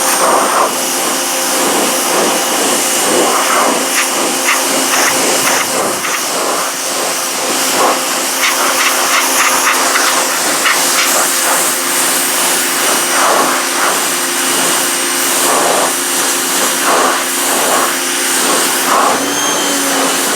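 Electric pressure washer running under load, its motor and pump giving a steady whine while the 15-degree spray blasts against wooden deck boards. Near the end the motor note dips briefly and spins back up.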